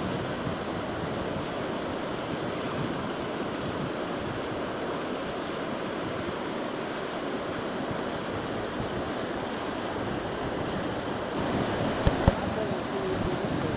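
Whitewater rapids rushing steadily, the churning noise of a river wave. Two sharp knocks stand out about twelve seconds in.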